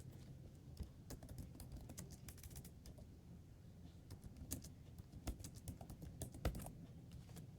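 Computer keyboard typing: faint, irregular keystrokes over a steady low hum.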